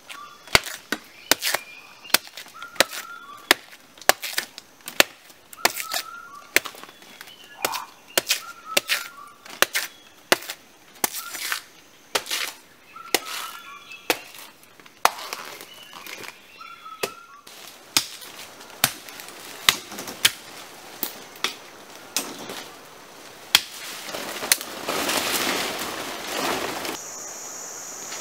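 Blade chopping repeatedly into a fibrous plant stalk: a run of sharp chops, roughly one or two a second, with short bird chirps between them. Near the end the chops give way to a few seconds of rasping noise, and then a steady high insect drone starts.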